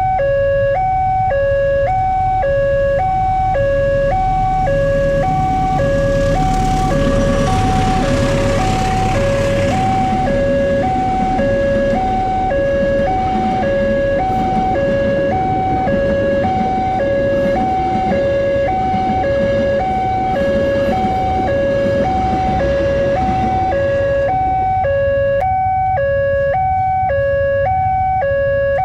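Railway level-crossing warning siren sounding a steady two-tone alternation, high and low, about once a second. From about six seconds in until about twenty-four seconds a rumbling noise builds and fades over it: a train passing the crossing.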